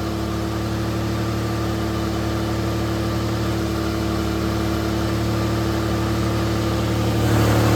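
1990 Toyota pickup's engine idling steadily, growing a little louder near the end. The owner calls its running awful and wonders whether it has a fuel problem.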